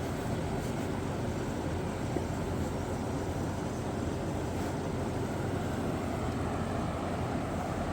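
A steady, even rushing noise with no distinct knocks or calls.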